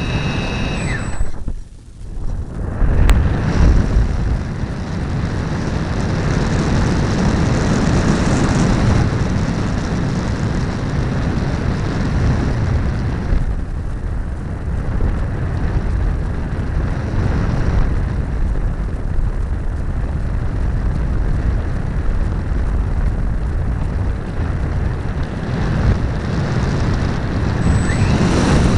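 RC model airplane in flight heard from an onboard camera: a steady loud rush of wind noise and motor sound, with a brief sharp drop about one and a half seconds in before it comes back loud.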